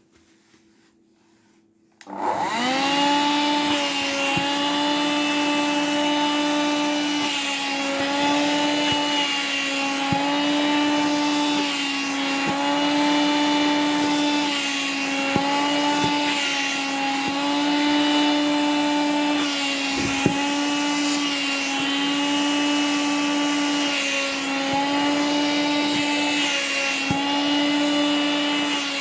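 Vacuum cleaner switched on about two seconds in, its motor whine rising quickly to speed and then running steadily. The pitch dips and recovers every second or two as the nozzle sucks at nylon fabric.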